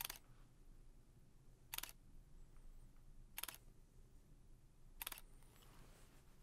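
Handheld digital camera's shutter clicking four times, about one and a half seconds apart, as a series of photos is taken.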